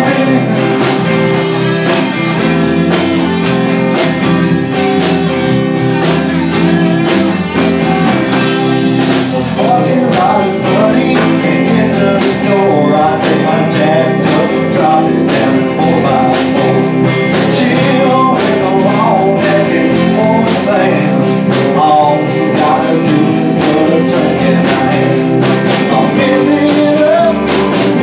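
A band playing a song, with a singing voice and guitar over a steady beat.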